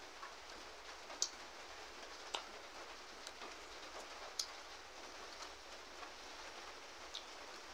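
Steady hiss of rain falling, with several sharp ticks scattered through it.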